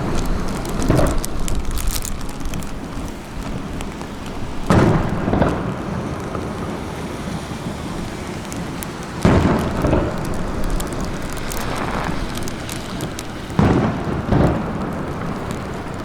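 Aerial fireworks bursting: deep, sudden booms every few seconds, several coming in pairs about half a second apart, over a continuous hiss between them.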